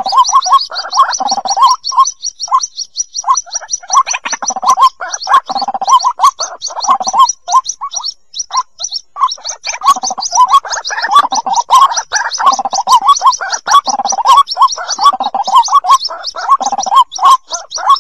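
White-breasted waterhen chicks calling for their parent: a rapid, continuous run of high peeps over lower, choppy calls that fall briefly quiet about two to four seconds in and again around eight seconds.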